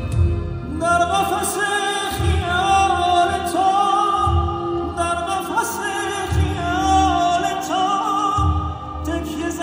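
Male Persian vocalist singing a wavering, ornamented melody with live orchestral accompaniment, the voice coming in about a second in. A low beat sounds roughly every two seconds beneath it.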